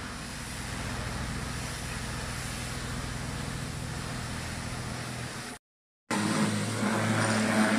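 A Kärcher pressure washer's jet hisses steadily on wet asphalt over a steady machine hum. A little over halfway through it breaks off in a brief gap. A louder steady hum with spraying follows as the washer is turned on a compaction roller.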